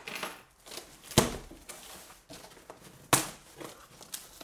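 Cardboard shipping box being opened by hand: rustling and tearing as the taped flaps are pulled apart and folded back, with two sharp cardboard snaps, about a second in and about three seconds in.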